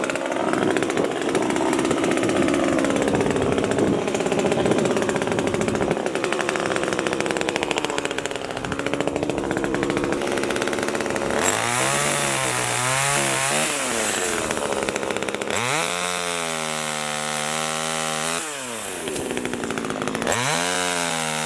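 Small gasoline chainsaw running: a rough, steady drone for about the first half, then revving up and down several times, its pitch rising and falling.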